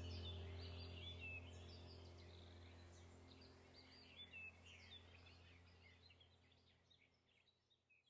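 Faint birdsong, many short chirps and twitters, over a low sustained music drone; both fade out steadily.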